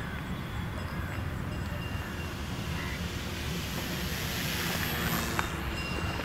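Electric motor and propeller of a foam RC Mustang plane buzzing as it flies past close overhead, growing louder to a peak about five seconds in and then falling away. A steady low rumble runs underneath, with a single click just after the peak.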